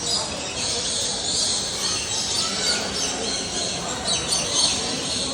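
Many birds chirping and squawking at once in a busy, overlapping chorus of short high calls, with louder bursts near the start and again about four seconds in.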